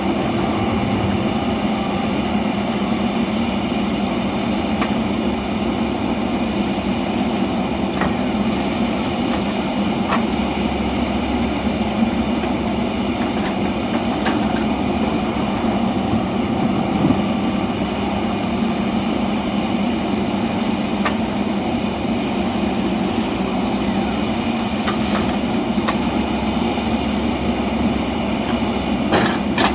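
Backhoe loader's diesel engine running steadily under work, with a few short metallic clanks scattered through it.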